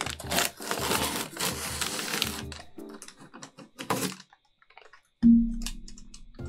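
Masking tape being peeled off a plastic model ship's painted deck: a crackling rip lasting about two and a half seconds. Background music with a beat plays throughout, and a loud low musical tone comes in suddenly about five seconds in.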